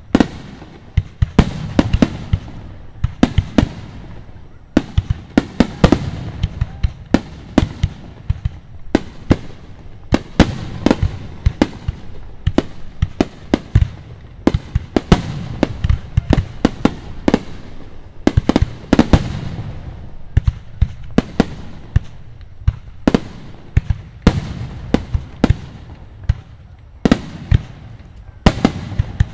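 Fireworks display: aerial shells bursting in quick succession, several sharp bangs a second, each trailing off in a rumbling echo.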